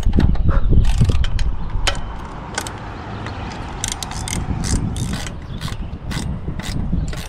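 Rapid, irregular metallic clicks and clinks of hand tools and bolt hardware while an antenna is fastened to a tower mast, over a low rumble that is strongest in the first second or so.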